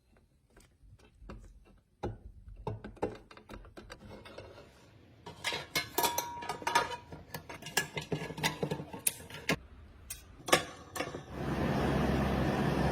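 Small metal parts and tools clicking, tapping and clinking in irregular knocks while a metal toy truck is worked on by hand. About eleven seconds in, a steady machine noise with a low hum starts up and holds.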